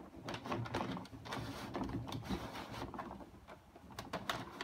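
The plastic front piece of an Electrolux Epic 6500 canister vacuum slid back and forth on its slides: irregular plastic clicks, knocks and scraping as the parts move and seat.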